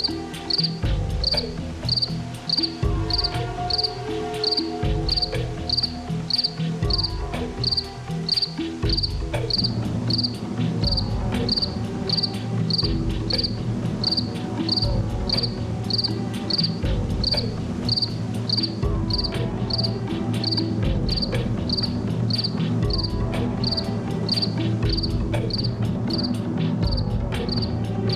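Crickets chirping in an even rhythm, about two chirps a second, over a low pulsing drone.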